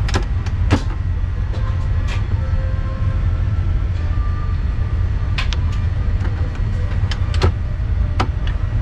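Steady low hum inside a Boeing 787-9 airliner cabin standing before take-off, with scattered sharp clicks and knocks.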